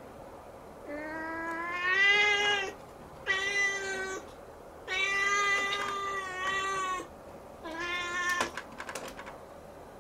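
Siamese kitten meowing insistently up at the ceiling, four drawn-out cries, the first and third about two seconds long. A few faint clicks come near the end.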